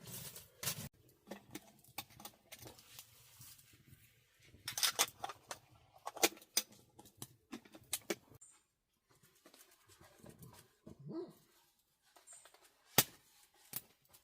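A dog's sounds amid scattered sharp clicks and knocks, a cluster of them about five seconds in and the loudest one near the end.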